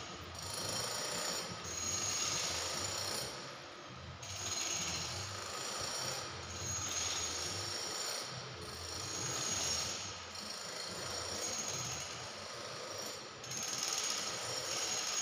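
Power tool grinding marble floor stone, a rough grinding noise that swells and eases every second or two as the machine is worked back and forth.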